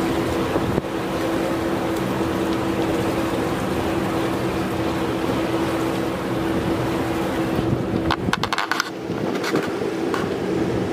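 Engine running with a steady hum. About eight seconds in, the hum falls away and gusts of wind buffet the microphone.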